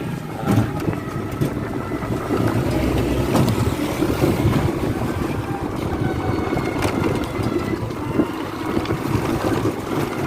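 Three-wheeled electric bike riding over a rough, broken road: the body rattles and knocks with every bump, over a steady rumble and wind buffeting the microphone.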